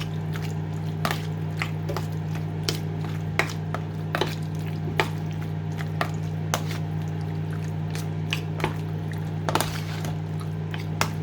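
Raw chicken being mixed by hand or spoon in a wet soy-sauce-and-vinegar marinade: irregular wet squishing with frequent small clicks and taps against the bowl. A steady low electrical hum runs underneath.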